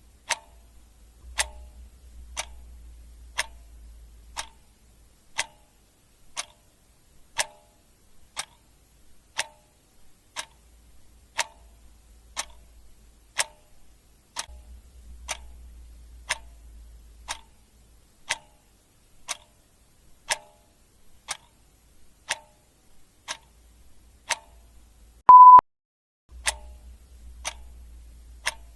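Clock ticking steadily, about one tick a second. Near the end a single short, high electronic beep sounds once, louder than the ticks.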